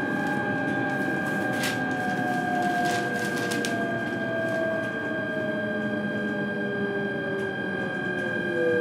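E129 series electric train's Toyo Denki VVVF inverter and traction motors heard from inside the car, slowing under braking. A steady high whine holds while the motor tones fall slowly in pitch. A few sharp clacks come in the first few seconds.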